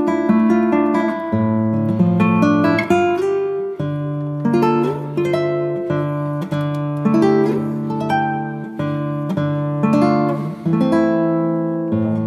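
Background music: plucked acoustic guitar playing a steady pattern of picked chords.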